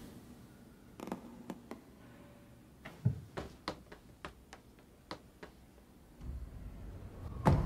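About a dozen light taps and clicks, spaced unevenly, followed near the end by a low rumble that swells into a sharp hit.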